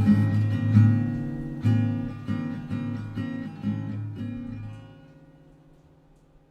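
Background music: strummed acoustic guitar chords at the close of a song, fading out and dying away to near silence about five seconds in.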